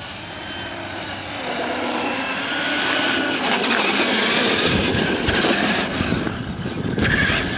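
Traxxas E-Maxx electric RC monster truck driving across asphalt: tyre noise and a thin motor whine, growing louder as the truck comes close about three seconds in, then rougher and choppier as it turns near the camera.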